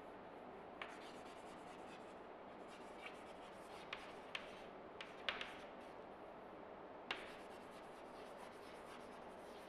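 Chalk writing on a chalkboard: faint scratching strokes, broken by several short sharp taps as the chalk meets the board.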